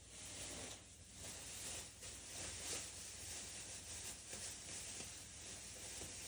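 Faint continuous rustling that rises and falls a little in loudness.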